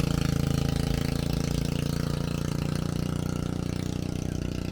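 An engine running steadily with an even, rapid beat, slowly fading.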